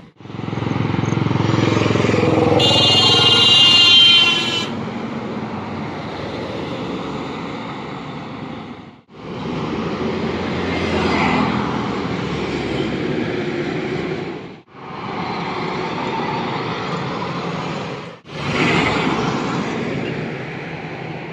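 Highway traffic going past: trucks and motorbikes passing close with engine and tyre noise, a heavy vehicle rumbling by early on while a vehicle horn sounds for about two seconds. The sound cuts off abruptly three times and resumes with more passing traffic.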